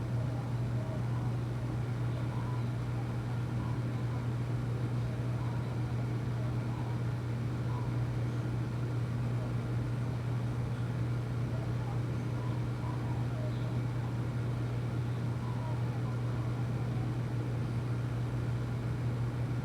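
Steady low mechanical hum over a constant noise, with faint brief sounds now and then.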